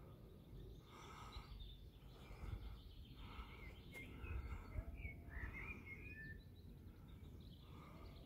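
Faint, hard breathing of a hiker climbing uphill under a heavy pack, about one breath a second. Small birds chirp a few times around the middle, over a low rumble on the microphone.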